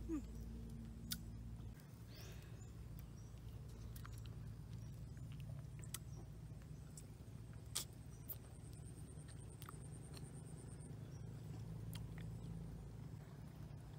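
A person eating a soft, ripe fruit: scattered short mouth clicks and smacks of biting and chewing over a low steady hum.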